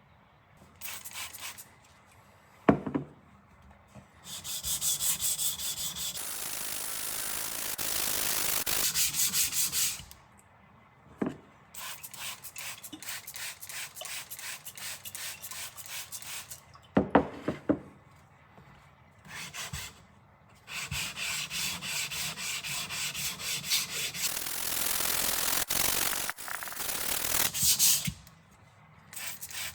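A rusty nakiri kitchen knife's steel blade being scrubbed with an abrasive to take off the rust: runs of rapid back-and-forth scraping strokes with pauses between them. A few sharp knocks come between the runs.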